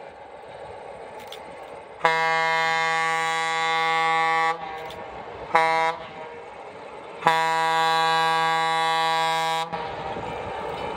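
Diesel locomotive air horn sounding long, short, long, the end of the long-long-short-long grade-crossing signal. Between blasts and after the last one the locomotive's engine runs steadily.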